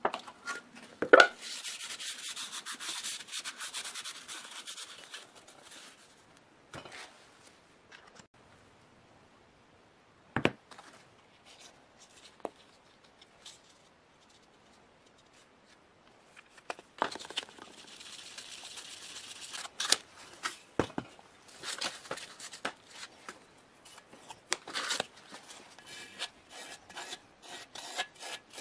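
Hand rubbing on a workpiece, like sanding or scrubbing, in two spells of about four seconds each: one soon after the start and one past the middle. Scattered sharp clicks and knocks of tools or parts being handled come in between, the loudest a little after the start and about halfway through.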